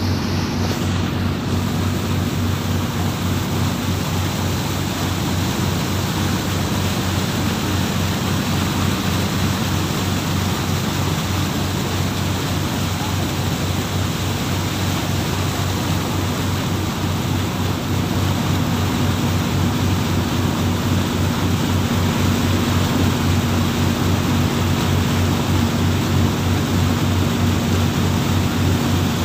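Engine of a fast wooden taxi boat running steadily at speed, with water rushing and splashing along the hull and wake. Getting slightly louder about two-thirds of the way in.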